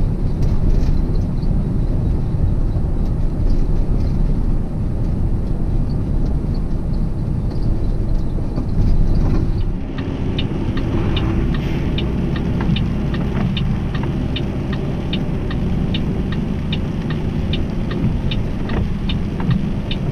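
Semi-truck engine running steadily, heard from inside the cab while driving. About halfway through, a regular ticking starts at about two ticks a second and keeps going.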